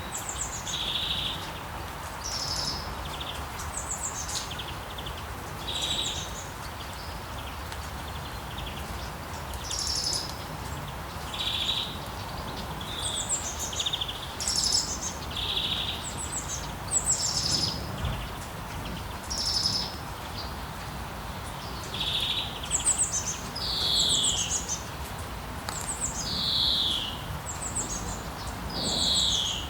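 Birds chirping and calling over a steady background hiss: short high chirps every second or so, with a few longer falling notes near the end.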